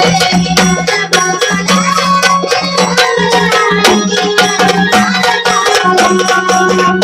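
Marathi gondhal devotional folk music: hand drums beating a quick, steady rhythm under a held low drone and a wavering melody line.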